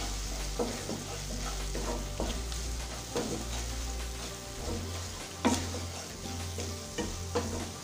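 Wooden spatula stirring and scraping thick tomato thokku (Indian tomato pickle) in a nonstick kadai with irregular strokes, while the paste sizzles over the flame. The mixture has cooked down to the thick thokku stage.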